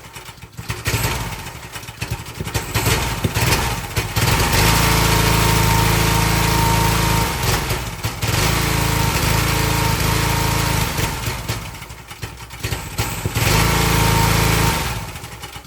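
Excell XR2500 pressure washer's 5 hp Honda single-cylinder engine running rough: it hesitates and cuts out several times, catches and runs again, and dies down near the end. The cutting out is caused by a bad spark plug, carboned up and gapped too small.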